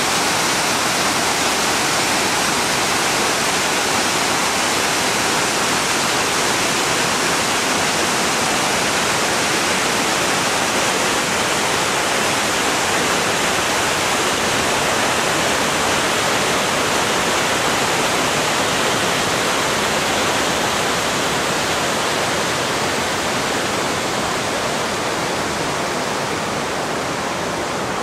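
Steady rush of running water, an even hiss that holds unchanged and eases off slightly near the end.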